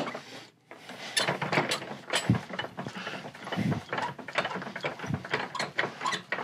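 Irregular mechanical clicking and clattering, several clicks a second, of tools and parts being handled at a workbench.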